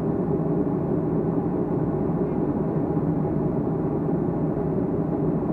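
Steady cabin drone of a Boeing 757-200 in flight: engine and airflow noise with a low hum, picked up by a camera stuck to the cabin window.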